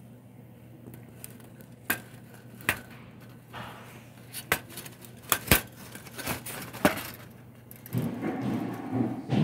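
Several sharp clinks and knocks of a metal pet bowl being handled on the floor, spread over a few seconds, followed near the end by a rustling shuffle.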